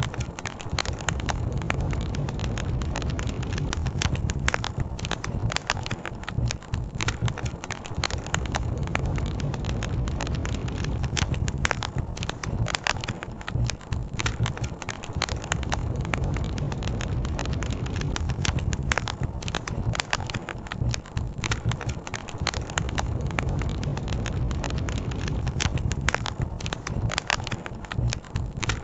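Campfire crackling, with frequent short sharp pops, over a steady low rush of a river.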